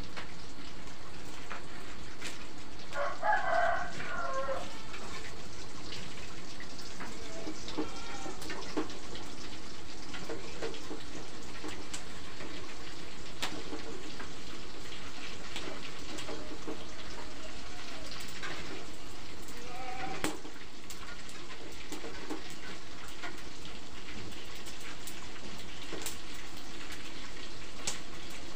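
A rooster crowing about three seconds in, with fainter crows or clucks later, over a steady hiss.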